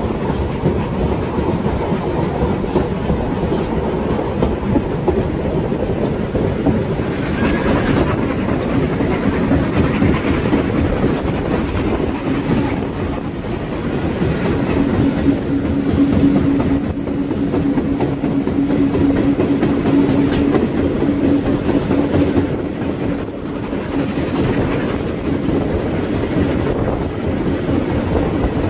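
Train running along the track: a continuous, steady noise weighted to the low end. About halfway through, a steady tone joins it for some seven seconds.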